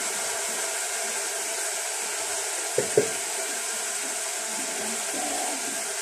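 Steady hiss from a pot of water boiling on a gas burner, with two quick knocks about three seconds in as the bowl of chopped kale is tipped against the pot.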